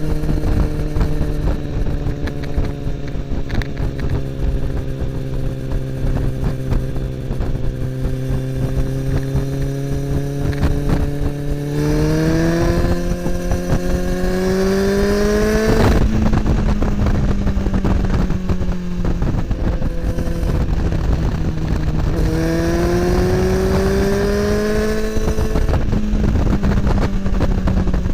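Kawasaki ZX10R inline-four engine running through an Akrapovic slip-on exhaust while riding, over wind and road noise. It holds a steady cruise, then the pitch climbs hard under acceleration about twelve seconds in and drops sharply at about sixteen seconds. It climbs again briefly and settles back to a steady note near the end.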